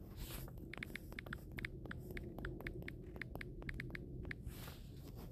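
Quick typing taps on a smartphone's on-screen keyboard, about twenty short clicks over some four seconds, each with a brief high tick, over a faint low hum.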